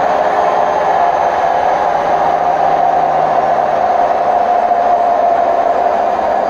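Hotpoint WMF760 washing machine on its spin cycle, running with a loud, steady roar and a held hum; the drum bearings are worn out.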